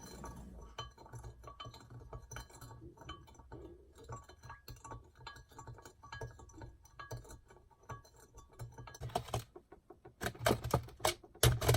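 Kitchen utensils and containers being handled: scattered small clinks and taps, getting busier and louder near the end.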